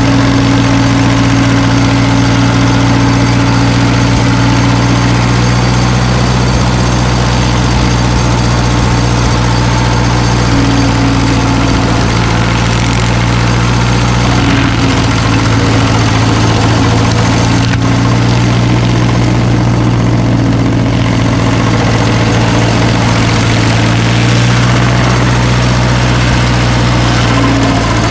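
Heavy machine's engine running steadily at a constant speed, a loud, even low hum with a rattly haze above it.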